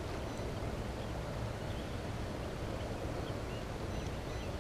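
Steady low wind rumble on the microphone, with a few faint, short bird chirps scattered through it.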